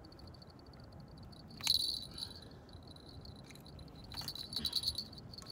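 A cricket chirping steadily in a high, fast-pulsing trill. Over it comes a sharp click about a second and a half in, and a cluster of clicks and scrapes near the end as a hook is worked out of a small shark on gravel.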